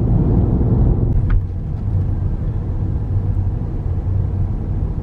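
Steady low rumble of a car driving, heard from inside the cabin, with road and engine noise; it drops a little in level about a second and a half in.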